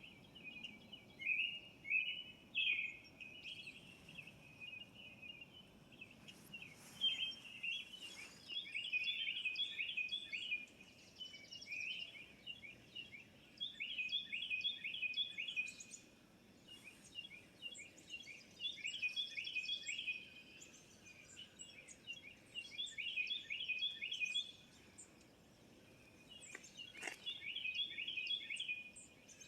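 A songbird singing phrases of quickly repeated notes, each phrase about two seconds long and coming back every few seconds.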